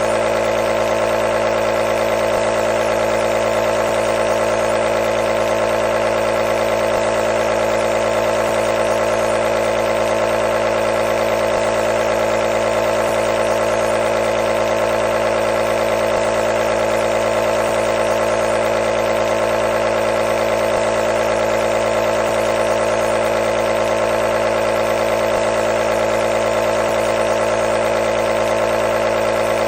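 Electric nebulizer's compressor running with a steady, unchanging buzzing hum and a hiss of air above it.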